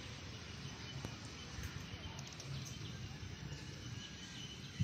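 Faint outdoor background hiss with a few faint, short bird chirps.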